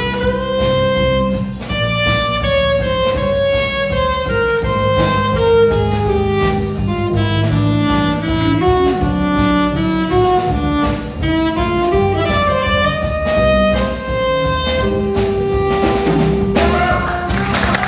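Small jazz combo playing: a horn soloing a flowing melody over bass and drums with cymbals. Applause breaks out near the end as a long held note finishes.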